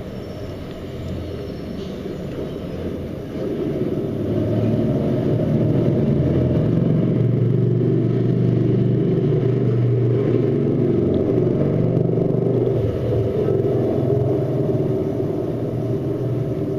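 Low rumble of a passing vehicle, swelling about three seconds in and easing off near the end.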